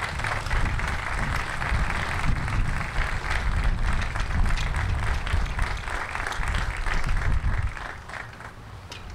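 An audience applauding over a low rumble; the clapping dies down near the end.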